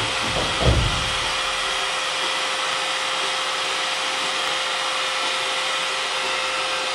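Steady machine noise: a loud, even hiss with a constant mid-pitched hum through it. A couple of dull low thuds come in the first second.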